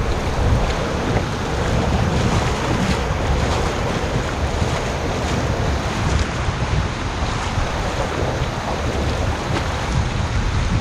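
Rough surf washing and breaking around a kayak in the shallows, with wind buffeting the microphone as a steady low rumble.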